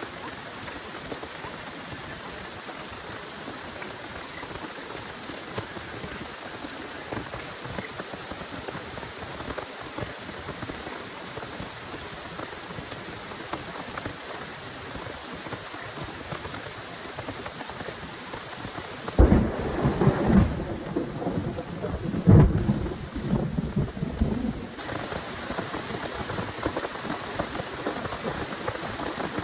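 Heavy rain falling steadily. About two-thirds of the way through, a loud rumble of thunder comes in two or three surges and lasts some six seconds.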